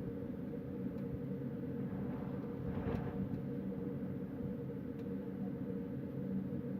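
Steady low rumble of wind, with a steady low hum underneath and a few faint ticks.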